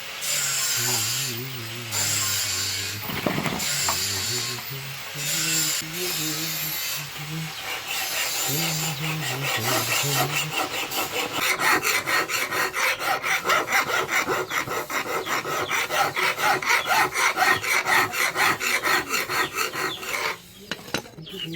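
A hand file rasping back and forth on a steel knife blade: slower, uneven strokes at first, then a steady run of about three strokes a second that stops shortly before the end. A low voice sounds under the first half.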